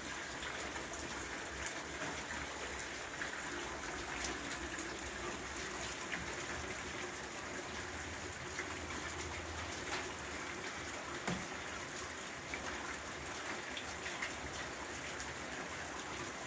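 Steady rain falling on standing water over a stone-paved courtyard, a constant hiss with scattered sharper taps of single drops landing close by.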